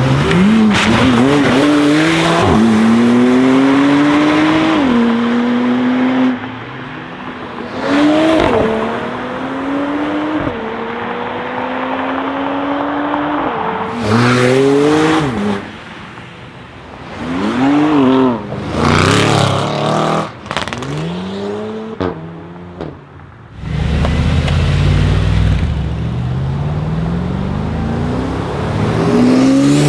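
Porsche 991 Turbo S twin-turbo flat-six through an Akrapovic exhaust, accelerating hard in several separate runs, its pitch climbing and dropping sharply at each upshift, with sharp pops in between. Near the end a deep low rumble gives way to another climbing acceleration.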